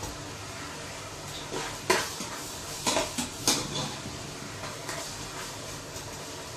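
A handful of sharp clinks of a metal utensil against a cooking pot as onions and garlic are stirred, the clearest about two, three and three and a half seconds in.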